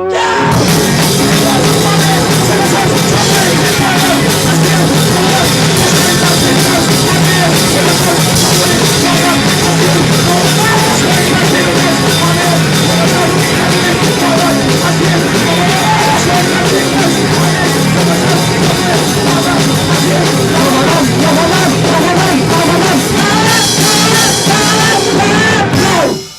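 Live rock band of electric guitar, bass and drums playing loud with vocals. The full band comes in at once at the start and stops suddenly near the end.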